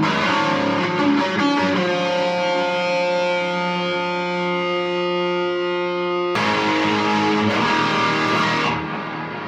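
Kramer Pacer Classic electric guitar played through a Boss DS-1 distortion pedal: a quick riff, then a chord left ringing for about four seconds and cut off sharply, then another burst of riffing that tails off near the end.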